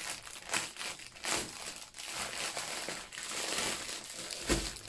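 Plastic wrapping around a bundle of diamond-painting drill bags crinkling and rustling in irregular bursts as it is pulled off by hand, with a low thump near the end.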